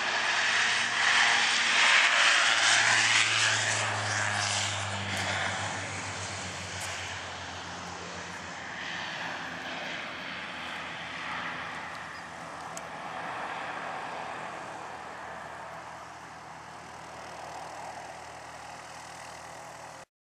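Bombardier Dash 8 Q400 turboprop, its Pratt & Whitney PW150A engines at takeoff power, passing close on its takeoff roll. It is loudest about two seconds in, with a low propeller drone that drops slightly in pitch as the aircraft goes by. The sound then fades steadily as it climbs away.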